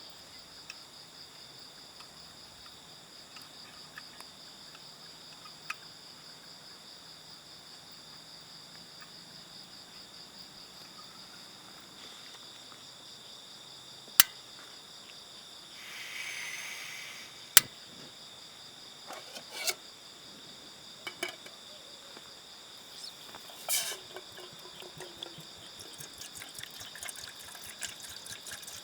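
Steady night chorus of crickets trilling. In the second half a few sharp clicks and knocks break in, with a short hiss about sixteen seconds in.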